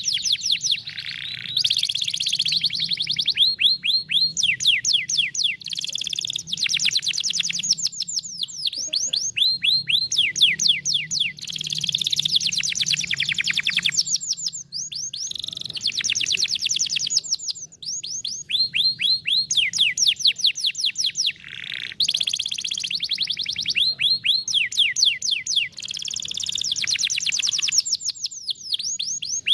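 Canary singing rapid trills of quick falling whistled notes, in back-to-back phrases of a second or two with short breaks between them. This is the song type named after a fishing rod's reel.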